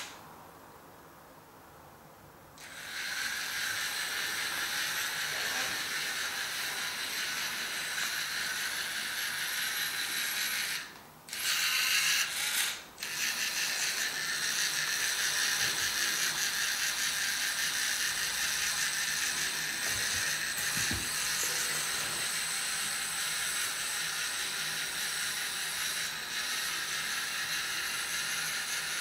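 Lego Mindstorms NXT robot's servo motors and gear trains whirring steadily as it drives, starting about three seconds in. The whir breaks off twice for a moment just before the middle as the motors pause.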